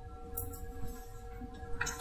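A few laptop keyboard keystrokes, sharp clicks about half a second in and near the end, as a terminal command is typed. Under them runs a steady hum with two held tones.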